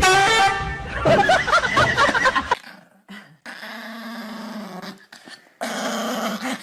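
A dog vocalizing in several bursts, loudest and most wavering in the first two and a half seconds, then quieter, longer held calls.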